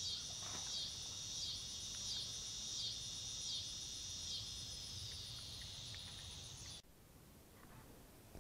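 Insects buzzing in a steady high chorus that swells about every three-quarters of a second, then cuts off abruptly near the end.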